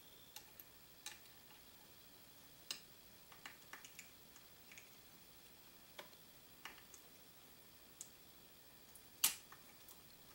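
Sparse, faint small metallic clicks and ticks from handling a lever-action rifle's receiver while fitting the saddle-ring screw, with one sharper click about nine seconds in.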